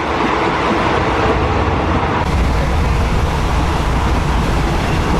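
Steady rumble and running noise of a moving passenger train, heard from inside a carriage.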